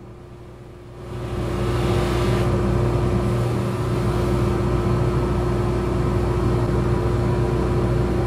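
Motor-driven buffing wheel running with a steady hum while a small brass patch is buffed on it with yellow rouge. About a second in, the machine noise jumps to a much louder steady rush, with a brief hiss over its first second or so.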